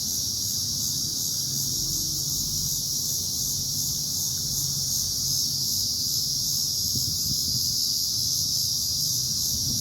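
Cicadas buzzing in a loud, steady, high-pitched chorus, close enough to sound as if they were right overhead.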